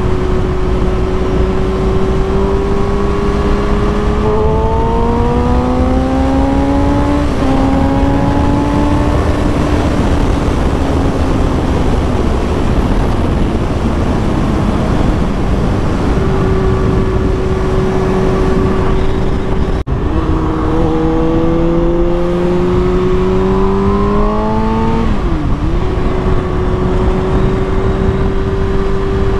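Kawasaki Ninja ZX-6R inline-four sport-bike engine heard from the rider's seat under heavy wind rush. It cruises at a steady pitch, then twice pulls up with rising pitch and drops sharply at each upshift, once about a quarter of the way in and again near the end.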